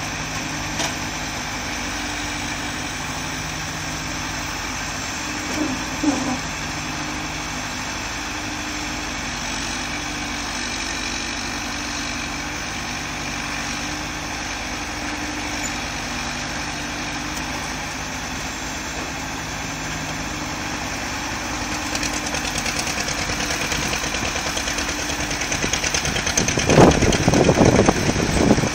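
John Deere 310D backhoe loader's diesel engine running steadily at idle. It grows louder over the last few seconds, with several loud bursts near the end.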